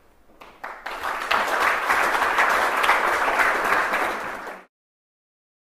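Audience applauding at the end of a talk: a few claps at first, building within a second to full applause, then cut off suddenly.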